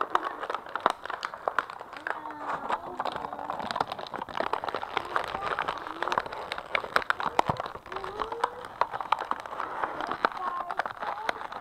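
Small plastic toys and packaging being handled: a dense run of small clicks and rustles, with faint voices now and then.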